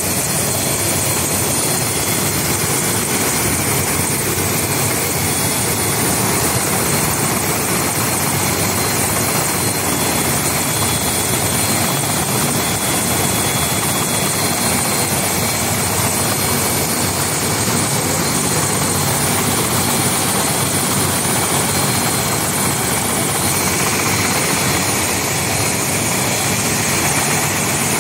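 Light helicopter running on the ground with its rotors turning: a steady, loud rotor and turbine noise with a thin high whine, unchanging throughout.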